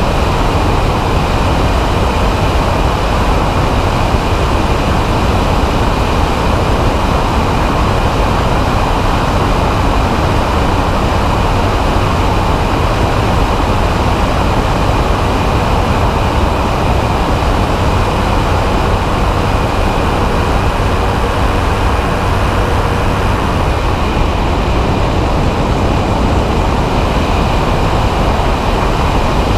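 Weight-shift microlight trike's engine and propeller running steadily in cruise flight, mixed with rushing wind on a wing-mounted camera.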